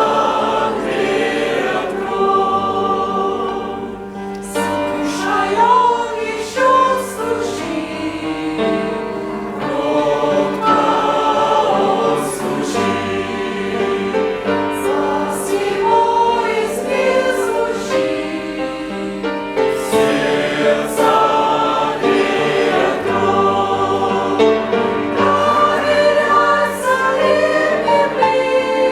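A church congregation singing a Russian-language hymn together, many voices sustaining the melody note by note.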